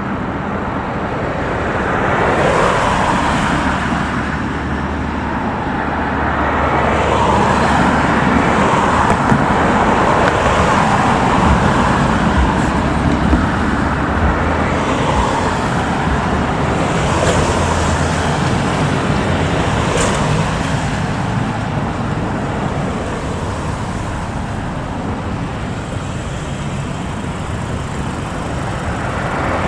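Road traffic: cars passing one after another, the noise swelling and fading with each, over a low steady hum during the first half.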